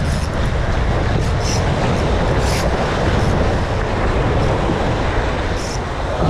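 Wind buffeting the microphone over waves washing against rocks: a steady rushing rumble, with a few brief hisses of breaking surf.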